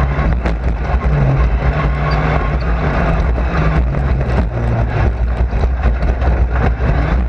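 Race car running hard at speed, heard from inside the cockpit: a loud, constant low engine rumble whose pitch rises and falls with the throttle, over frequent rattling knocks.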